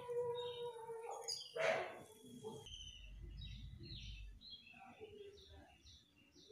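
A single knock about two seconds in, then small birds chirping in many short, repeated calls.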